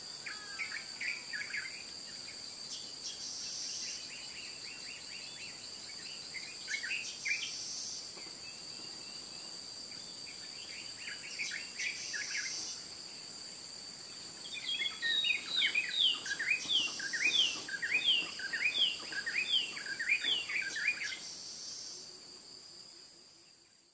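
Bush ambience: a steady high-pitched insect drone with birds chirping over it. About fifteen seconds in, a bird gives a run of quick descending notes, about two a second, and then the sound fades out.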